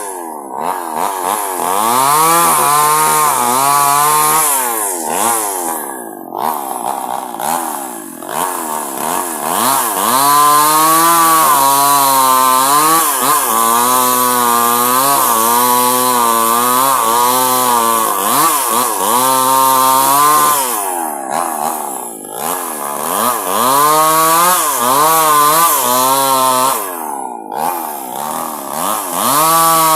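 Two-stroke chainsaw ripping a log lengthwise, at full throttle throughout. The engine pitch rises and falls again and again as the chain bogs into the wood and frees up.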